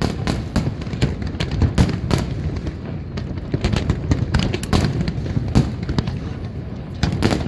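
Fireworks display going off in a rapid, continuous barrage of bangs and crackles over a low rumble, with a louder cluster of bursts near the end.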